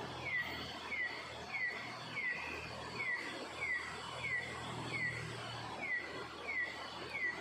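An animal calling over and over: a short, falling high note repeated at an even pace, about three every two seconds.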